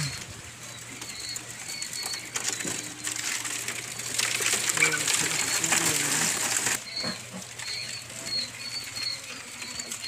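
Caged quail calling with short, high chirps over and over. About four seconds in, a louder flurry of wing flapping and scuffling on the wire lasts a couple of seconds.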